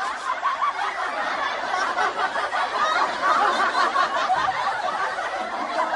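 A crowd of many people laughing together at once, like a sitcom laugh track.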